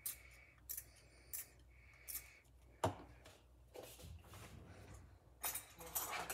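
Small plastic bottle shaken and tapped over a cup, giving short light clicks about every three-quarters of a second, then a single knock as it is set down on the counter about three seconds in. Near the end, a kitchen drawer pulled open with a rattling clatter.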